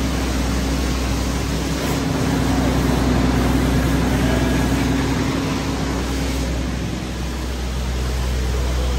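Pressure washer spraying a semi truck in a wash bay: a steady hiss of water spray over a steady low hum.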